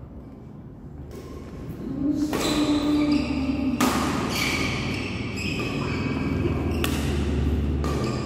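Badminton doubles rally in an echoing hall: several sharp racket hits on the shuttlecock, a second or more apart, with held tones ringing on between them.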